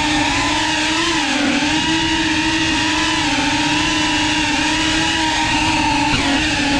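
Whoop-class FPV drone's small motors and ducted propellers whining steadily, the pitch dipping and rising together as the throttle changes in flight.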